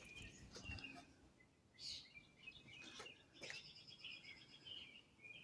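Faint bird chirps repeating in the background, with a few light clicks.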